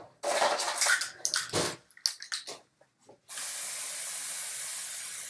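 Kitchen tap running water in a steady stream from a little past three seconds in, after a louder burst of noise and a few clicks in the first two seconds.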